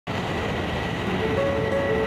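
Aermacchi MB-339 jet trainers' turbojet engines running on the ground: a steady rumble with a constant high whine. Music with short held notes comes in over it about a second in.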